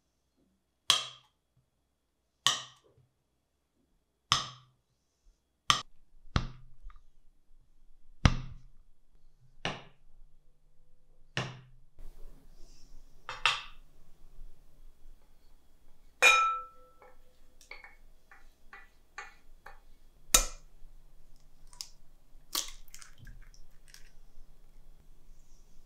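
Kitchen clinks and knocks, dishes and utensils set down and handled, a sharp strike every second or two. One strike about two-thirds of the way in leaves a short ring, with lighter ticks after it.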